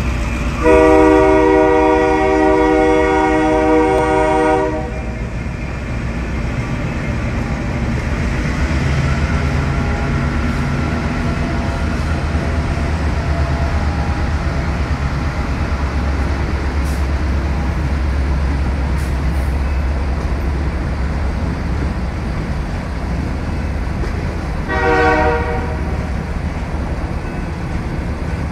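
Freight train horn sounding one long blast about a second in, then the train rolling through the grade crossing with a steady low rumble of wheels and cars. A short horn blast comes again a few seconds before the end.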